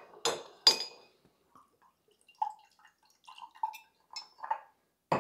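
Two sharp glassy clinks from the glass bottle, then kombucha poured from the bottle through a small mesh strainer into a glass, trickling and dripping in small irregular spurts.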